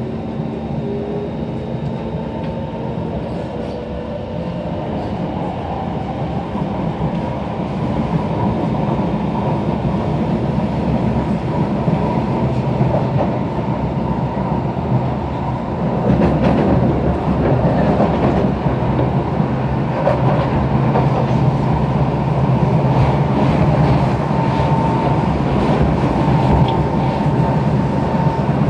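SMRT C151 metro train, built by Kawasaki Heavy Industries, heard from inside the carriage as it pulls out of a station. The running noise of wheels on rail and traction motors grows louder as the train picks up speed, with a faint rising motor tone near the start.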